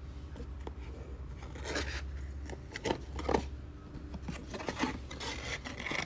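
Cardboard product box being handled and opened by hand: irregular rubbing and scraping, with a few sharper scrapes around the middle.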